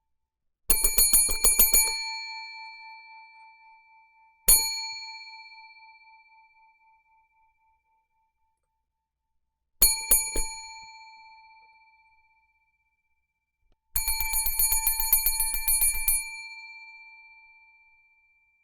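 Hotel front-desk service bell dinged in four goes: a rapid burst of strikes, a single ding, a short flurry of three or four, then a longer rapid burst. Each time it rings on and fades away afterwards.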